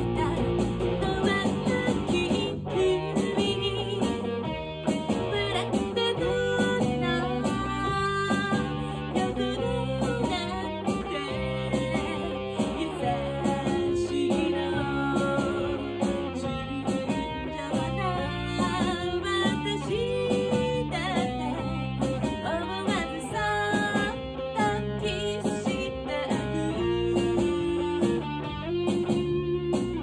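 Electric guitar played through an Effects Bakery NEW GINGER FUZZ pedal, giving a distorted fuzz tone, accompanying a woman singing a pop song.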